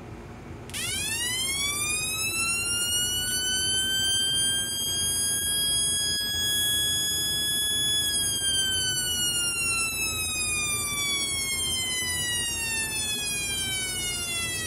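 Homemade transistor oscillator siren, with a 100 microfarad capacitor as its timing capacitor, sounding through a small loudspeaker. It plays a harsh siren tone that sweeps up while the push button is held, levels off, then glides slowly back down for about seven seconds and cuts off. The long, slow sweep comes from the large capacitor, which makes the wail "a little long, but still, not too bad."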